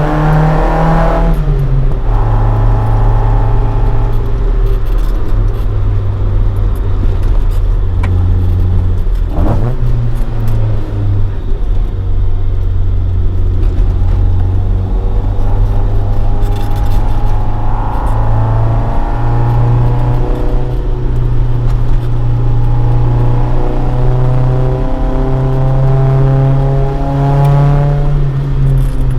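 Toyota AE86 Sprinter Trueno with a swapped AE111 20-valve four-cylinder on individual throttle bodies and a Fujitsubo Legalis R exhaust, running on the road. The engine note drops about a second in, runs fairly steadily, climbs again past the middle and drops once more near the end.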